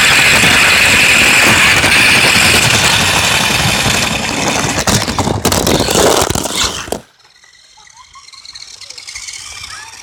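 Remote control car running flat out over cracked asphalt, heard from a phone mounted on its front: loud, dense running noise with a steady high whine, a cluster of sharp knocks as it tips over about five to seven seconds in, then an abrupt drop to faint background sound.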